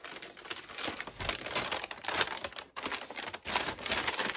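Paper bag rustling and crinkling as it is handled and opened, a dense rapid crackle with two short breaks.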